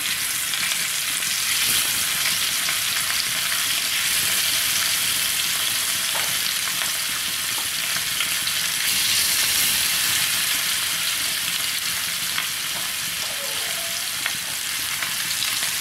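Marinated dried fish pieces shallow-frying in hot oil on a flat chapati tawa: a steady sizzle with small crackles.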